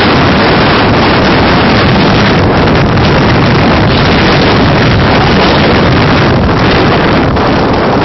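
Wind blowing hard across the microphone: a steady, loud rush of noise.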